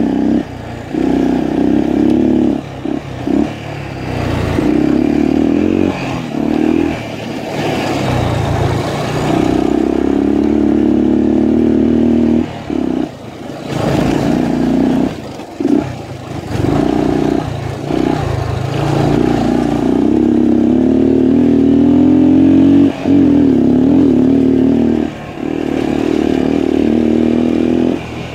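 Honda XL250's air-cooled single-cylinder four-stroke engine running as the bike is ridden along a dirt trail, its pitch rising and falling with frequent brief, irregular drops in level.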